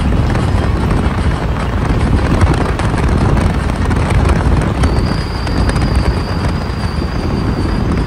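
Steady road and wind rumble heard from inside a moving car at speed. A faint, thin, steady high whine joins about five seconds in.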